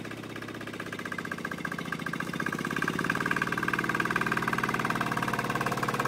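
Single-axle walking tractor's engine running with a rapid, even chug as it drives along pulling a trailer. It grows louder over the first few seconds as it approaches, then holds steady.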